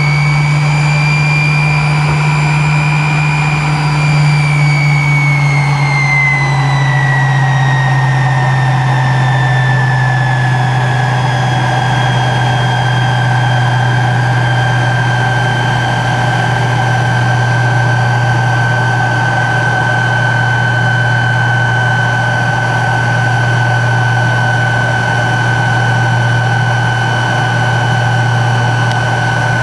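Tupolev Tu-134's Soloviev D-30 turbofan jet engines heard from inside the cabin: a loud whine that falls in pitch over about ten seconds and then holds steady, over a constant low drone.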